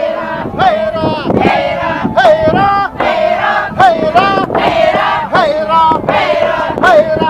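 A group of dancers chanting in unison in a Dolgan ritual circle dance: a short call that swoops up and down in pitch, repeated rhythmically about once a second.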